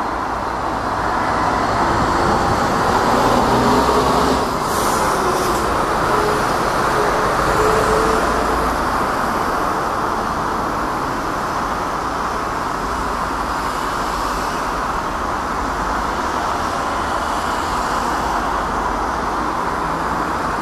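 Steady rushing roar of an Airbus A380-861's four Engine Alliance GP7200 turbofans heard from the ground at cruise altitude. It swells slightly in the first several seconds, then holds steady.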